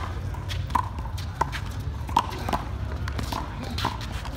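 Small rubber handball struck by bare hands and rebounding off concrete walls and floor in a fast rally: a string of sharp smacks, roughly one every half second to second, over a steady low rumble.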